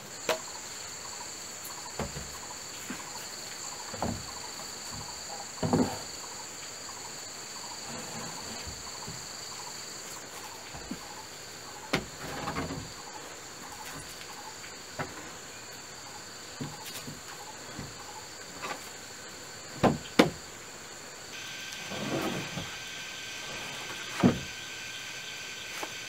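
Sawn wooden planks knocking and thudding against a wooden floor frame as they are handled and laid, in scattered single knocks and short clusters, the loudest a close pair about two-thirds of the way through. Under them runs a steady high-pitched insect chorus, which changes pitch about 21 seconds in.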